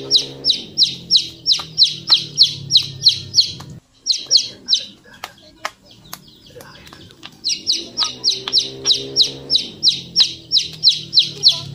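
Bird chirping rapidly and loudly, about five short falling chirps a second, in two long runs with a pause of a few seconds in the middle, over a low hum.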